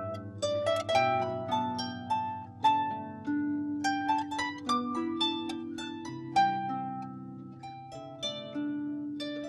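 Clarsach, a small Scottish harp, playing a slow tune of plucked notes that ring and fade over sustained low bass notes.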